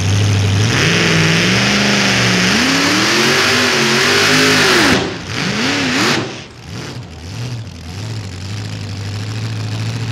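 Supercharged engine of a super modified four-wheel-drive pulling truck at full throttle under load on the sled, its pitch climbing and wavering as the tires dig in. About five seconds in it drops off sharply, revs once more briefly, then settles to a steady idle.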